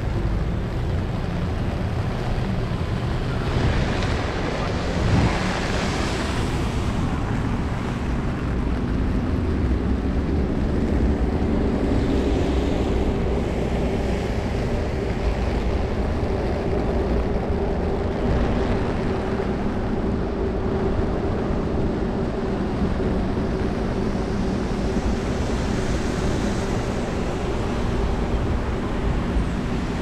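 Wet city street ambience: car tyres hissing on rain-soaked pavement, swelling as several vehicles pass, over a low rumble of wind on the microphone. A steady low hum runs through the middle.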